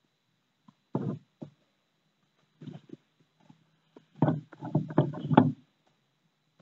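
Russian tortoise shells knocking and scraping together as the male mounts the female during courtship. There is a single knock about a second in, a couple of lighter ones a little before three seconds, then a quick run of knocks and scrapes from about four seconds in.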